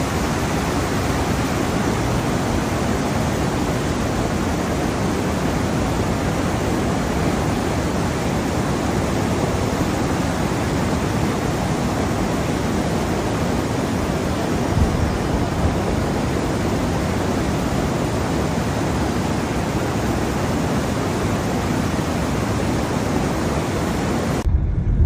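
Heavy rain pouring down in a steady, dense hiss that cuts off abruptly near the end.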